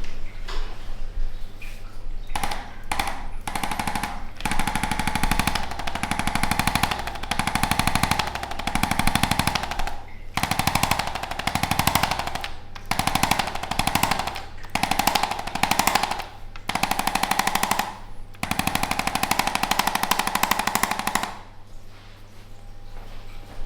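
Electric percussion massage gun running as a rapid, even hammering buzz, in runs of one to two seconds broken by short pauses. It stops near the end.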